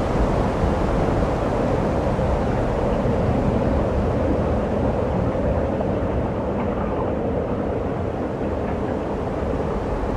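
Steady rumble of wind buffeting the microphone, with no distinct events.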